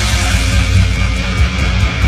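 A hard rock band playing live: electric guitars, bass and drums.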